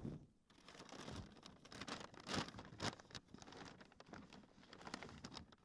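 Faint rustling and crinkling of a paper shopping bag as hands rummage inside it, with irregular small clicks and crackles.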